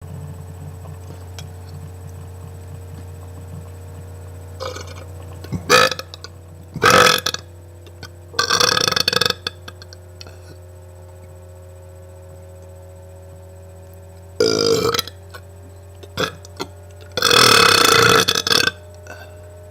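A person burping on purpose, one burp after another: about five loud burps with a few smaller ones between. Two are short and sharp, others are drawn out, and the longest comes near the end, lasting over a second.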